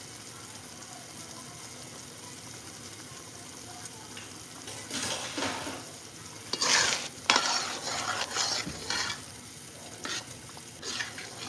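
Thick tomato meat sauce simmering in a large pot with a steady low hiss, and a ladle scooping through it to skim off the oil. Louder bursts of scraping and clattering come from about five to nine seconds in.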